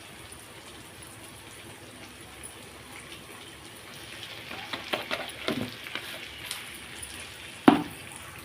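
Onion and spice masala frying in oil in a kadhai, a low steady sizzle. A run of clicks and scrapes comes about four to six seconds in, and one sharp knock near the end.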